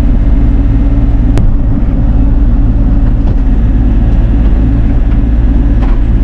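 Bobcat E42 mini excavator's diesel engine running steadily while the boom works, heard from inside the cab, with one sharp click about a second and a half in.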